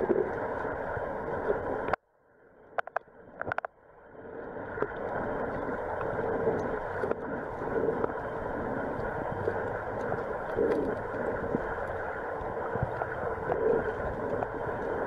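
Muffled, steady rushing hum of water as picked up by a camera held underwater. It drops out suddenly about two seconds in, with a few faint clicks, then fades back up and runs on.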